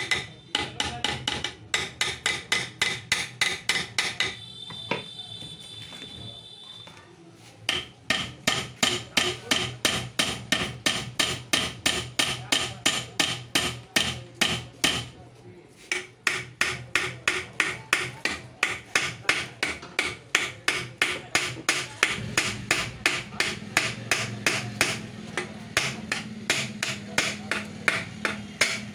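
Repeated hammer blows on the metal pump housing of a 1 HP monoblock water pump, about three strikes a second, each with a metallic ring, to knock loose a pump body jammed by rust. The hammering stops for about three seconds near the start and for about a second midway.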